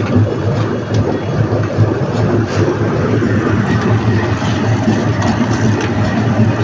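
Concrete mixer machine running steadily, its engine giving a low throb, with occasional sharp clicks over the top.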